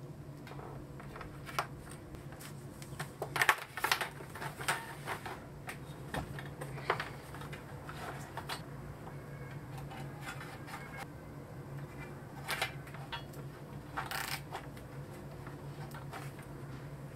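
Corrugated plastic cable conduit and plastic solar-cable connectors being handled: irregular clicks, rattles and rustles, loudest about three and a half seconds in, over a steady low hum.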